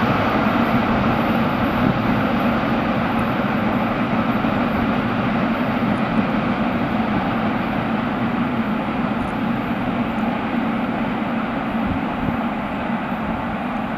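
Freight train rolling past: a steady rumble of wheels on rails that slowly fades.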